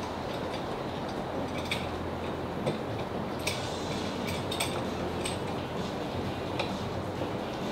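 Scattered light metallic clicks and taps as a G clamp is fitted and screwed tight onto a wooden board, over a steady low hum.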